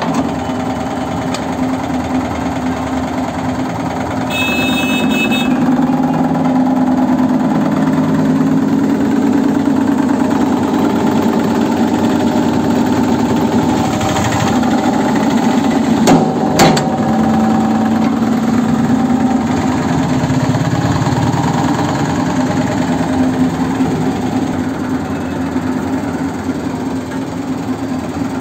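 Hydraulic shearing machine's power unit running with a steady hum that grows louder about four seconds in as the ram loads up and drives the shear blade into a steel flat bar. About sixteen seconds in, two sharp cracks as the bar shears through.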